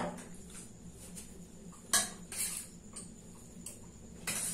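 Stainless steel plates and bowls clinking and scraping as food is eaten from them: a sharp clink about two seconds in, a softer one just after, and a longer scrape near the end.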